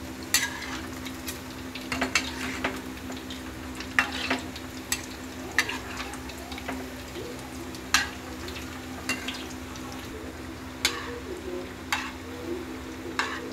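Semolina gulab jamun deep-frying in oil in an enamel kadhai, a steady sizzle, with a metal spatula clinking and scraping against the pan every second or two as the balls are turned.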